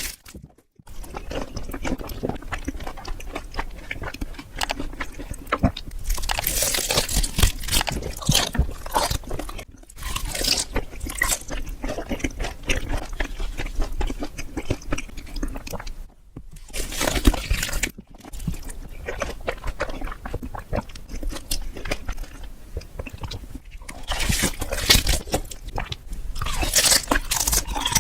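Close-miked eating: crunchy bites and chewing, with a few brief breaks.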